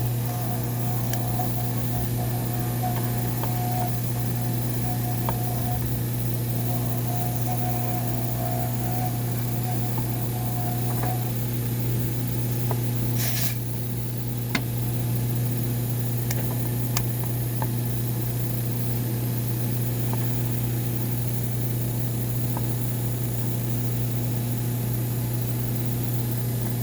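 A steady low machine hum with scattered small clicks, and a brief high hiss like a spray about halfway through.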